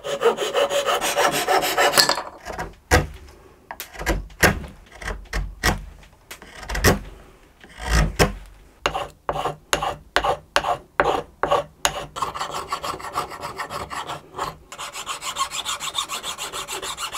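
Hand tools cutting and scraping away a glued-on violin fingerboard and paring the wooden neck beneath it. There are about two seconds of steady back-and-forth strokes, then separate sharp strokes about twice a second, then from about twelve seconds a fast run of short knife-scraping strokes.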